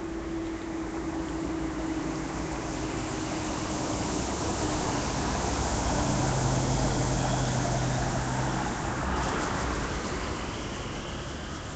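Road traffic passing on a wet road: tyre hiss and engine noise swell to a peak about seven seconds in, then fade.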